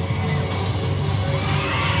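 Music with a pulsing beat, with thrill-ride riders screaming and shouting, the screams building near the end.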